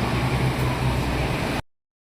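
Keifuku bus engine and road noise, a steady low drone, cutting off abruptly into silence about a second and a half in.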